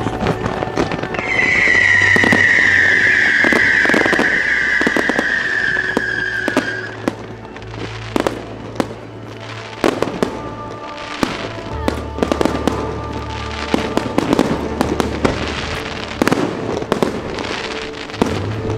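Fireworks display: aerial shells bursting in rapid, uneven bangs and crackles over background music. A loud, high whistle from a whistling firework sinks slowly in pitch from about a second in until about seven seconds in.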